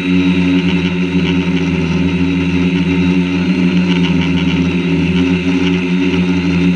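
Quadcopter drone's electric motors and propellers running in flight, a steady, loud hum with a few held tones, as heard by the camera mounted on the drone.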